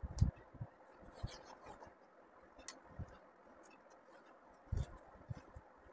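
Faint handling sounds of beadwork: scattered small clicks and scratchy rustles as a needle strung with pearl beads is worked through crochet wool.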